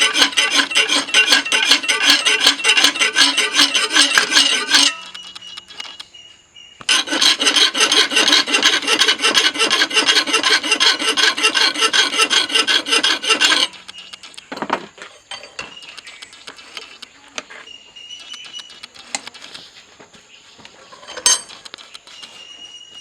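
Rapid rasping strokes of a file or abrasive worked back and forth over a steel knife blade. It comes in two long bursts with a short pause between them, then quieter clicks and handling sounds, with one sharp click near the end.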